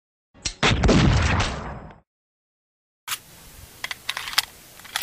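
One Desert Eagle pistol shot sound effect with a long echoing tail that fades out over about a second and a half. A few seconds in, a series of sharp mechanical clicks follows over a faint hiss.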